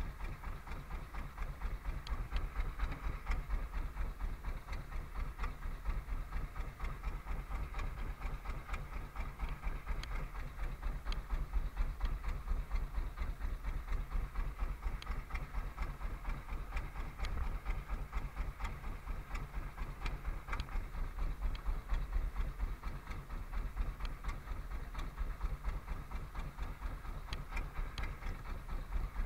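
A small fishing boat's engine running steadily with a fast, even chugging pulse.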